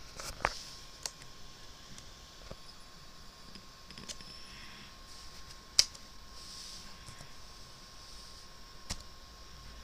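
Sparse single clicks of a laptop keyboard and pointer, about six in all, a second or more apart, the sharpest about six seconds in, over a faint steady whine.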